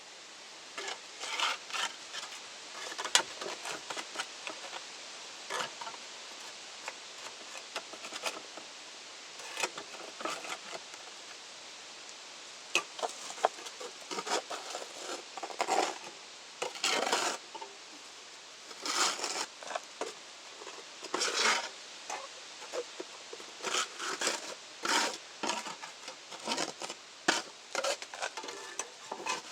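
Tools scraping and clinking on brick and ash inside a wood-fired kiln's firebox as ash and debris are dug out: irregular short scrapes and knocks, with a few longer scrapes of about a second near the middle.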